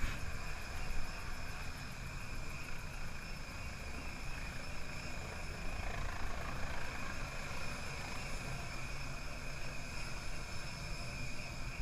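Helicopter taking off from an offshore oil platform, its rotor and engine a steady drone mixed into a constant rush of wind and sea noise.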